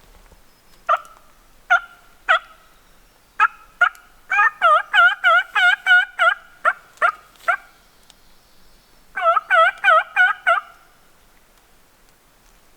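Turkey hen yelps. A few single clucks come first, then a quick run of about eight yelps about four seconds in, a few more single notes, and a second run of yelps near the end.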